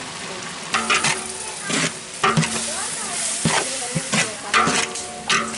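A long metal ladle stirring and scraping through tomatoes and mint leaves frying in oil in a large aluminium pot. A steady sizzle runs under repeated sharp scrapes and knocks of the ladle against the pot.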